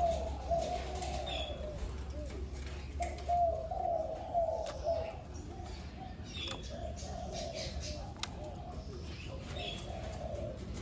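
Spotted dove (a captive decoy bird) cooing in repeated phrases, with short pauses between them.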